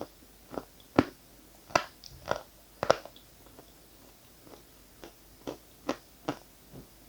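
Close-up ASMR crunching and chewing of dried edible chalk and clay. About a dozen short, crisp crunches come roughly two a second, louder in the first three seconds and softer as the pieces are chewed down.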